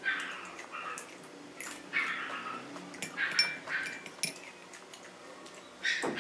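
Close-up crunching of tortilla chips being bitten and chewed, in crisp bursts about a second apart with a pause before another near the end. There is one light clink about three seconds in.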